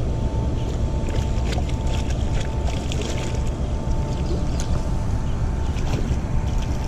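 Wind rumbling on the microphone, with scattered light clicks from a spinning reel being cranked while a hooked fish pulls on the line. A faint steady high whine runs underneath.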